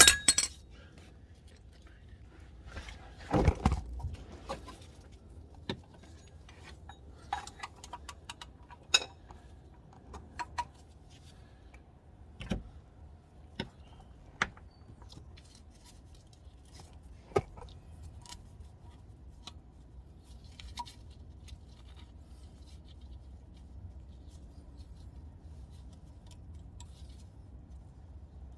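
Metal hand tools clinking and clattering: a sharp click at the start, a louder clatter a few seconds in, then scattered single knocks that thin out, over a faint low hum.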